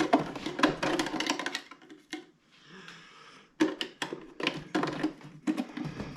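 Plastic cover of a Bissell ProHeat carpet cleaner being worked back into place by hand: a rapid run of clicks and knocks. A pause of about a second and a half comes a little after two seconds in, then more clicking.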